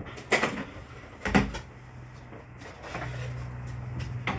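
Tools being picked up and put down, with two sharp knocks about a third of a second and about a second and a half in. A low steady hum comes in about three seconds in.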